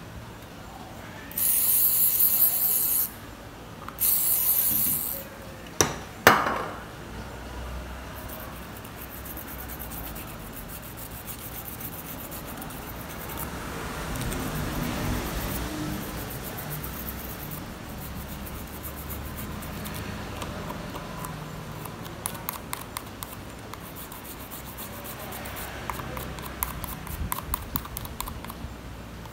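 Two loud hissing sprays in the first few seconds, then a couple of sharp clicks. After that an old toothbrush scrubs the clear plastic keypad membrane of a Nokia 1280, a steady scratchy rubbing that turns into quick rapid brushing strokes near the end.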